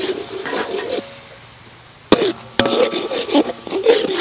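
Metal ladle stirring and scraping a thick, sticky sauce in a steel wok, with two sharp knocks of the ladle on the pan a little after two seconds in.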